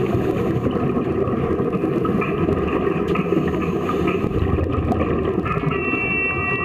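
Steady, muffled underwater rumble picked up through a waterproof camera housing, with the bubbling of scuba divers' regulator exhaust.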